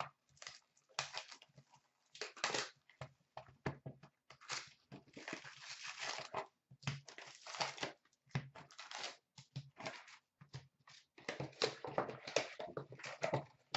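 Wrapped trading-card packs and their cardboard box crinkling and rustling as they are handled, pulled out of a freshly opened 2015-16 Upper Deck SP Authentic hockey box and stacked, with some tearing. The rustling comes in irregular short bursts, with one longer stretch about five seconds in.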